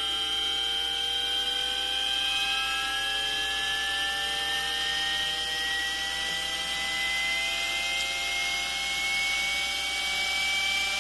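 Aircraft vertical gyro motor whining as it spins up under 400 Hz power, its pitch rising slowly and steadily. Steady tones sound underneath.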